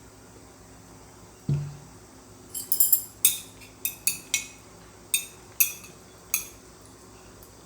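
A dull thump, then about ten sharp clinks of cutlery against dishes at irregular intervals over some four seconds.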